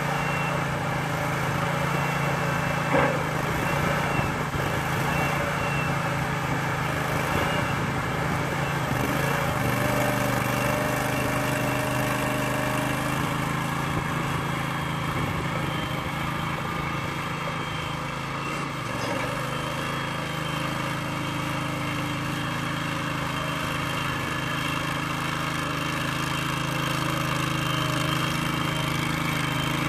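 The onboard engine of an Aust-Mech ADOG drive-over grain hopper running steadily while the machine drives under its own power. A single short knock sounds about three seconds in.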